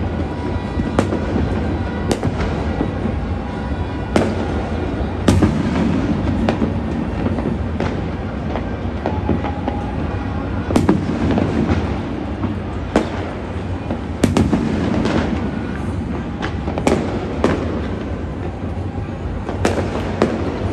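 Fireworks going off all across a city: a continuous rumble and crackle of many distant explosions, with about a dozen sharper bangs from nearer shells at irregular intervals.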